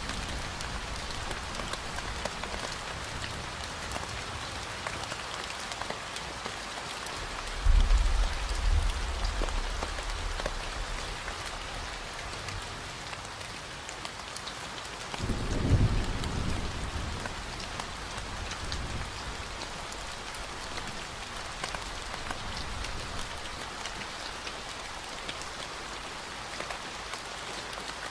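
Steady rain falling, with two low rolls of thunder: one about eight seconds in and one about fifteen seconds in.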